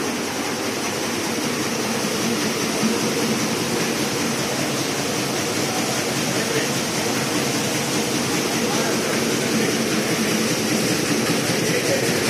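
Cardamom grading machine running with a steady, dense rattling noise as green cardamom pods shake across its vibrating sieve trays.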